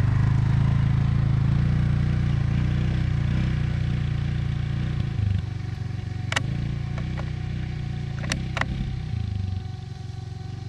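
Polaris Ranger side-by-side's engine running as it drives away, its low rumble fading and dropping off about nine and a half seconds in. Three sharp clicks in the second half.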